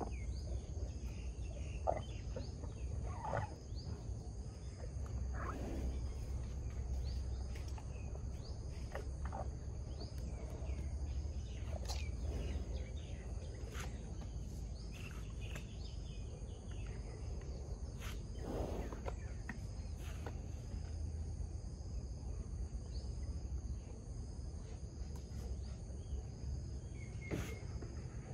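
Steady chorus of insects, with a low steady rumble beneath. Scattered brief clicks, knocks and short chirps come and go, the loudest about 2, 12 and 18 seconds in.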